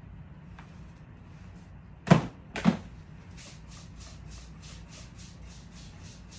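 Two loud knocks about two seconds in, half a second apart, then a quick run of short hisses, about four or five a second: a trigger spray bottle of disinfectant being pumped over and over.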